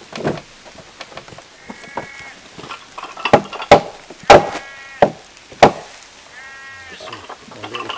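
About four sharp wooden knocks as heavy timber sill beams are worked into place, with sheep bleating three times in between.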